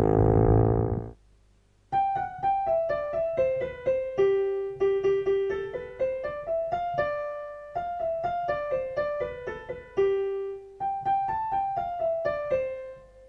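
Background music: a solo piano plays a simple melody of single notes that falls and rises in steps. Before it, a low drone cuts off about a second in.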